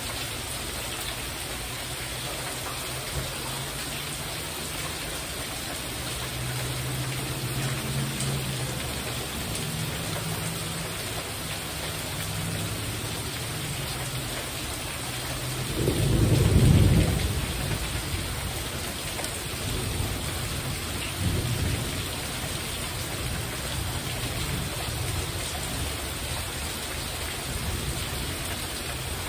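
Heavy rain falling steadily on a porch roof. Thunder rumbles low underneath, with the loudest roll a little past halfway and a shorter one a few seconds after.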